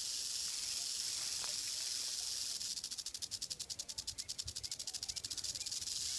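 Rattlesnake rattling its tail: a steady, high, hissing buzz that turns into a fast pulsing from a little under halfway through until near the end. It is the snake's defensive warning at being approached.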